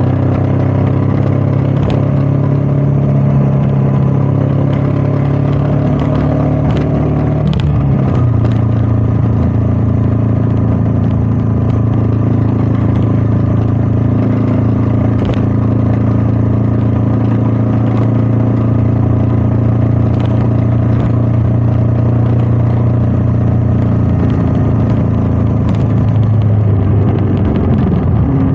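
Royal Enfield Meteor 350's single-cylinder engine running at steady cruising revs, heard from the rider's position with wind noise; its note drops in pitch about eight seconds in, holds steady, and shifts again near the end.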